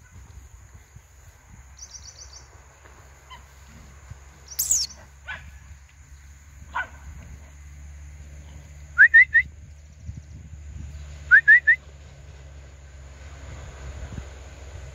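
Wild birds calling: a loud downward-sweeping whistle about five seconds in, then two sets of three quick rising whistled notes, over a steady low rumble.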